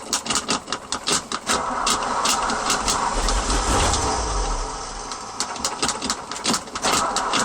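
Car engine being started with difficulty: it cranks and stumbles with a rapid, uneven clatter and is slow to catch, settling into a steadier run near the end.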